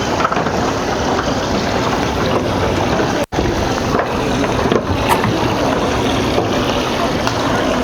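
Steady rush of wind and water from a boat running across the water, with a momentary dropout a little over three seconds in.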